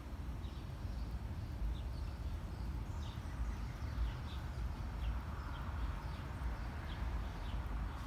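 Small birds chirping, many short high chirps scattered throughout, over a steady low rumble.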